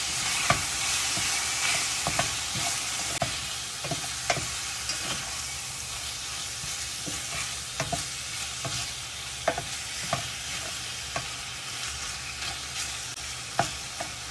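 Chicken strips and onion sizzling in olive oil in a stainless steel skillet, with a steady high hiss. A spatula stirs them, scraping and clicking against the pan at irregular moments.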